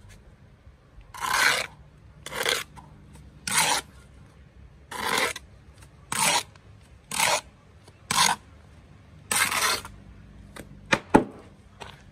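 A bricklayer's trowel and steel jointer scraping along the fresh mortar joints of a concrete block course: about eight rasping strokes roughly a second apart, then two sharp clicks near the end.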